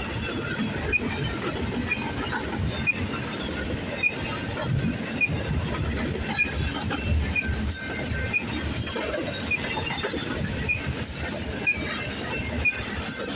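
Intermodal freight train cars rolling past: a steady low rumble of steel wheels on rail with a regular clickety-clack as the wheels cross rail joints.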